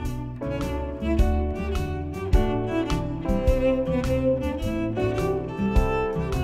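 Background music: bowed strings over a steady beat.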